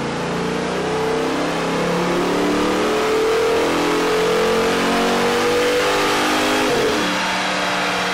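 Jeep Grand Cherokee SRT8's 6.1-litre Hemi V8, with its stock air intake, under load on a chassis dyno. The engine pitch climbs steadily for about seven seconds, then drops abruptly and settles to a steady note.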